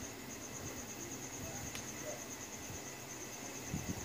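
A cricket chirping in a steady, fast pulsing trill with brief breaks, and a couple of soft low bumps near the end.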